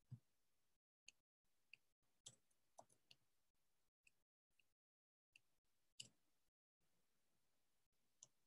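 Near silence, broken by about nine faint, isolated clicks at irregular intervals from a computer mouse and keyboard.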